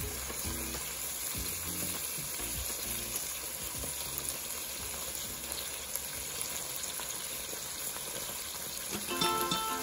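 Pork hocks sizzling steadily in a hot stainless steel pot, with a metal spoon stirring them at the start. Background music comes in near the end.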